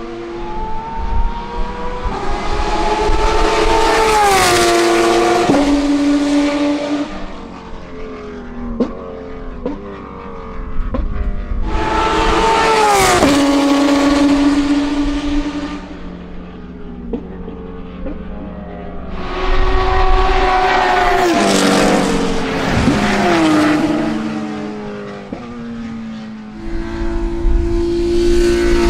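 Porsche 911 GT America's 4.0-litre flat-six racing engine passing at high revs three times, the pitch falling sharply as each car goes by, with stepped drops like sequential downshifts on the third pass. Quieter engine notes of other cars on track are heard between the passes.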